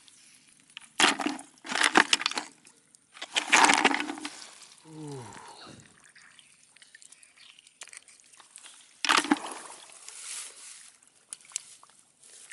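Water splashing and sloshing in several loud bursts, each under a second long, with quieter movement in between. A short falling pitched call comes about five seconds in.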